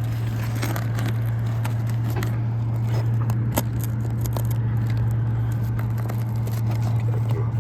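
A thin roofing pry bar scraping and clicking under brittle 3-tab asphalt shingles, with small cracks and ticks scattered through and a sharper snap about three and a half seconds in. The shingles are brittle enough to crack when worked, which rules out spot repair. A steady low hum from an unseen machine runs underneath and is the loudest sound.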